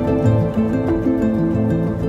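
Calm instrumental background music: a melody of plucked, harp-like string notes over a low bass line.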